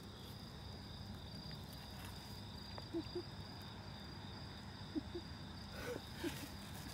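Night insects chirping steadily at two high pitches over a low background rumble, with a few faint short low sounds here and there.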